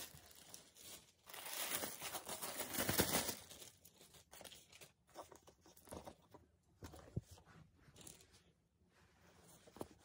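Thin plastic gift bag crinkling and rustling as a cap is pulled out of it. The rustle is heaviest in the first few seconds and thins to scattered light crinkles.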